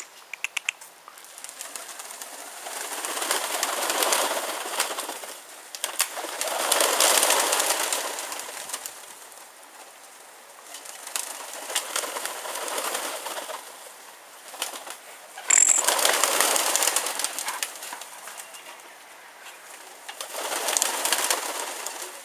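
Wings of a flock of pigeons rushing past, the whoosh swelling and fading about five times. There are a few sharp clicks in the first second.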